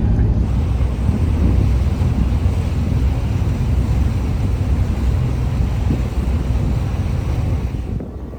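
Tour boat's engine running steadily while under way, with wind buffeting the microphone.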